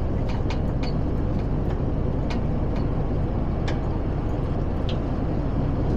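Mercedes Actros truck driving along a road, heard from inside the cab: a steady engine and road rumble with occasional light ticks and rattles.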